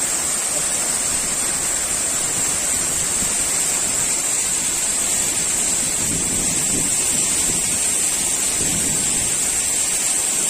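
Waterfall rushing steadily, an even wash of falling water with a thin, steady high hiss on top.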